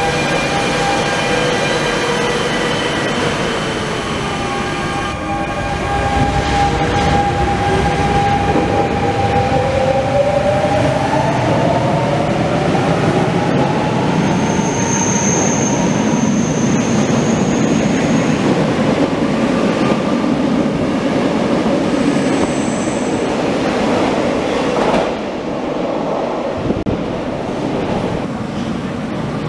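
Double-deck RER A commuter train pulling out of an underground station. Its traction motors whine, rising in pitch as it accelerates, over a growing rumble and clatter of wheels. A high squeal lasts a few seconds about midway, and the noise eases near the end as the train clears the platform.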